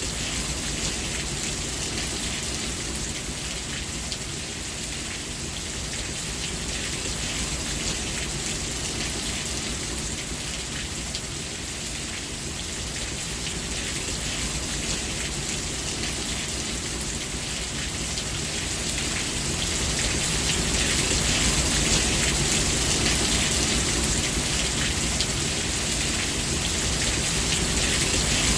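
Steady rainfall, an even hiss of many drops, growing a little louder about two thirds of the way through.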